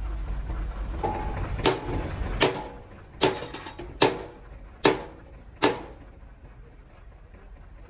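Six sharp metal blows, evenly spaced about one every 0.8 seconds, each with a short ring, typical of a hammer striking the damaged truck's steel. A low rumble underneath stops about two seconds in.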